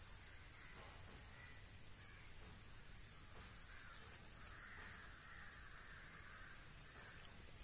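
Faint outdoor ambience with a bird repeating a short, high, downward-slurred call about once a second. A soft rustle in the middle as a cotton cloth is spread over the pot's steel lid.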